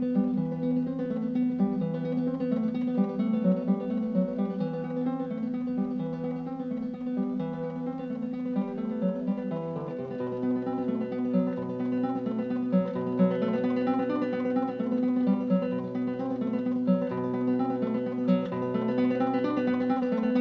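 Instrumental acoustic guitar music: plucked notes in a repeating figure over a low bass line.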